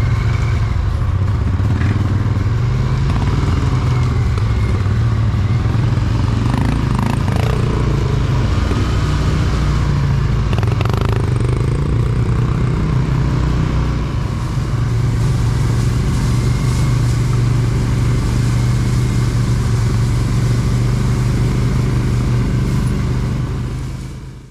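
Quad bike (ATV) engine running steadily, heard from aboard the machine as it crawls over a rough trail, with a couple of faint knocks near the middle. The sound fades out at the very end.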